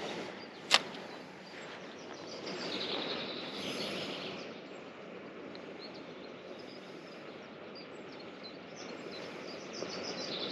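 Outdoor ambience: a steady low hiss of background noise with faint bird chirping. One sharp click comes about a second in.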